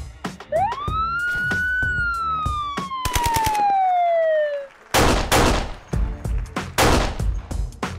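Backing music: a drum beat with a siren-like sample that sweeps up quickly and then slides slowly down. A fast drum roll comes about three seconds in, and loud noisy crashes follow near the end.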